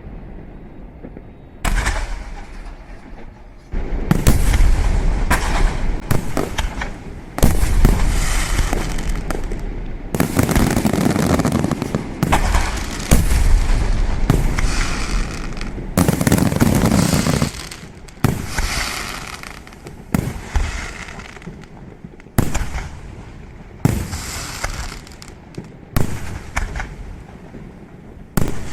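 Fireworks display: a fast barrage of bangs and crackling bursts, then single loud reports about once a second near the end.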